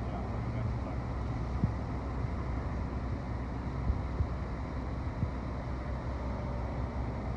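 Steady low outdoor rumble with a few faint bumps.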